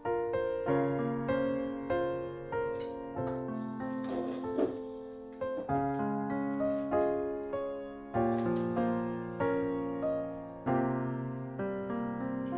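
Background solo piano music, a calm run of single notes and chords, each struck and left to ring out.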